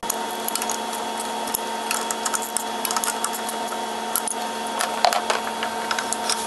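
Irregular metallic clicks and clinks of a hand wrench working the starter generator's mounting bolts on a Club Car DS gas golf cart, tightening it after the new belt is tensioned, over a steady background hum.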